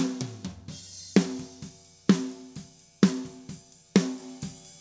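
Recorded snare drum track playing a steady beat, a ringing snare hit about once a second with fainter hits between, heard dry and uncompressed with the 1176-style FET compressor bypassed.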